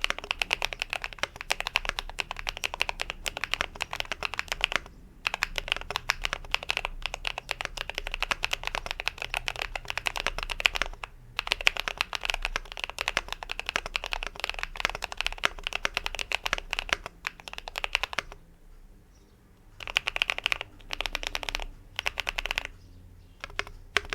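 Fast typing on an Idobao ID80 mechanical keyboard with stock factory-lubed MZ Studio Z1 linear switches on an aluminium plate with foam mods, giving a creamy, poppy keystroke sound. The keystrokes come in long rapid runs with brief pauses, then a longer lull with two short bursts and a few scattered key presses near the end.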